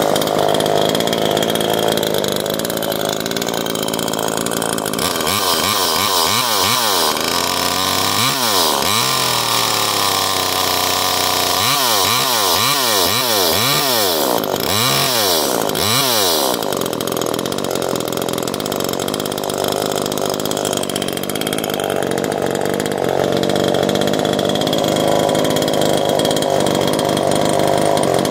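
Chinese G3900 top-handle chainsaw, a two-stroke Echo clone with a 16-inch bar and Stihl chain, running and being revved. It runs steadily, then the throttle is snapped open and shut in short revs, a few about a quarter of the way in and a quick run of about six near the middle, before it settles back to steady running.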